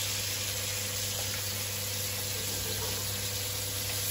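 Fish frying in oil in a pan, a steady sizzle, over a low steady hum.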